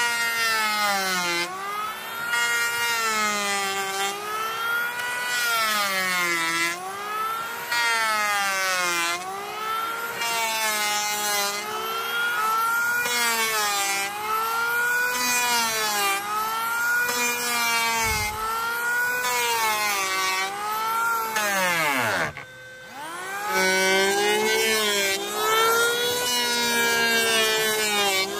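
Handheld electric power tool working wood, its motor pitch dipping and recovering every second or so as it bites into the boards. About 22 seconds in it is switched off, winds down, and starts up again about a second later.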